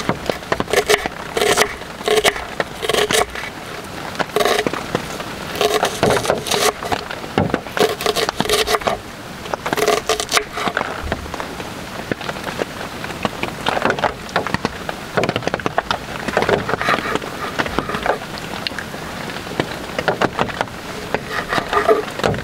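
Kitchen knife chopping on a wooden cutting board, first dicing a red onion and then cutting cherry tomatoes. The strikes come in quick runs of sharp taps against the wood, with short pauses between runs.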